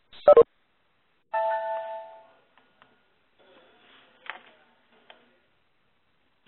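A short two-tone chime that rings and fades over about a second, played through web-conference audio with a phone-line sound. It comes just after a sharp double click, and a few faint clicks follow.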